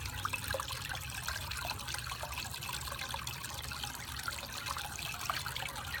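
Water steadily trickling and splashing in a homemade tiered fountain: pumped water runs from a pipe outlet into stacked terracotta plant saucers and spills over into the pot of water below.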